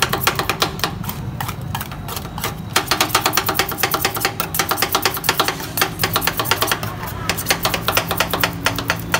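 Two metal spatulas chopping ice cream mix on the frozen steel pan of a Thai rolled-ice-cream stall: a rapid, steady clatter of metal blades striking the pan, many taps a second. A low steady hum runs underneath.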